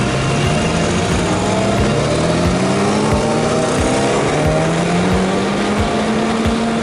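Sport motorcycle engine accelerating, its note climbing steadily in pitch through one long pull, over a steady rush of wind noise.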